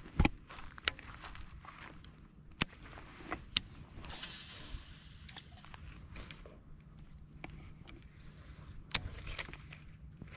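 Handling noise from a baitcasting rod and reel: scattered sharp clicks and knocks, with a short whirring hiss lasting about a second and a half partway through.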